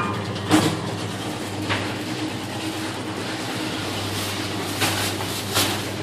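Steady mechanical hum of running machinery, an even low drone, with a few short sharp knocks or clicks over it.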